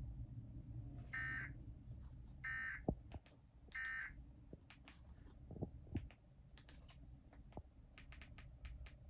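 Three short bursts of Emergency Alert System (SAME) digital data tone, each under half a second and about a second apart: the end-of-message code that closes a NOAA Weather Radio broadcast. Faint scattered clicks follow over a low hum.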